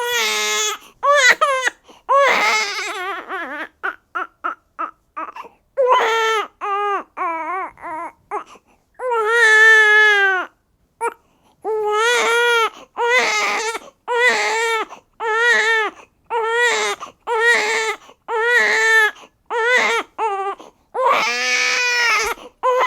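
Newborn baby crying: a string of wails broken by short breaths, most about a second long, with one longer wail near the middle.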